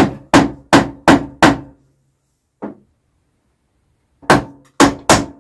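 Hammer tapping on metal to persuade a part of the Riley 9 engine install that would not sit down into its seat. Five quick ringing strikes about a third of a second apart, one lighter tap, then another quick run near the end.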